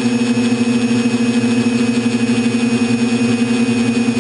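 TBS Discovery quadcopter's electric motors and propellers running at a steady cruise, an even, unbroken hum as heard from the onboard camera.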